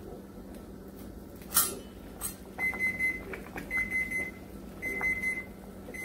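A kitchen timer going off: a series of high beeps in groups about once a second, starting about two and a half seconds in. The set boiling time for the corn is up. Two sharp knocks come just before the beeping starts.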